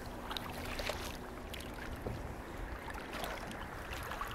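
Kayak paddling on a river: light paddle splashes and water dripping and lapping around the hull.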